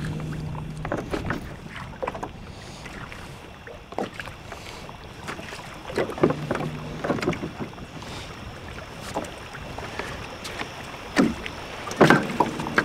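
Small boat moving up on a fishing float: a low boat-motor hum comes and goes in short spells, over water sloshing along the hull and scattered knocks and splashes.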